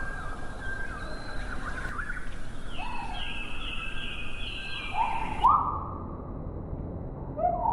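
Birds calling: a run of short, clear whistled notes repeated over a steady outdoor hiss. About five and a half seconds in, the sound changes abruptly to lower, upward-sliding calls.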